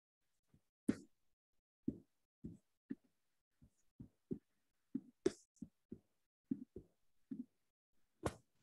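Irregular taps and clicks of a laptop keyboard being typed on, about fifteen in a row, with three louder, sharper clicks among them.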